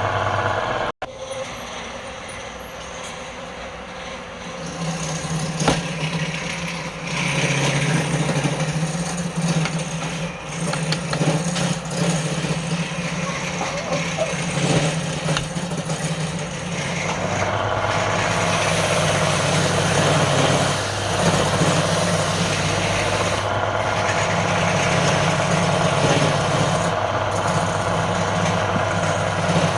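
Wood lathe running with a steady motor hum over a noisy wash. The sound breaks off for an instant about a second in, after which the hum shifts to a higher pitch.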